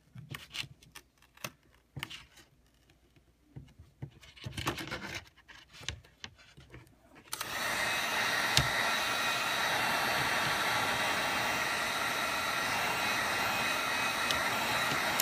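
Faint taps and rubbing of fingers on a cracked iPad mini glass panel as it is lifted from the frame. About halfway through, a steady rushing noise from an electric blower starts suddenly and runs on, with a faint motor whine.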